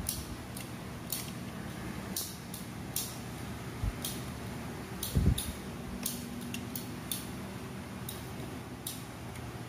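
Light clicks and handling noise from large plastic toy building bricks being held and turned, with one dull thump a little past five seconds in, over a steady low hum.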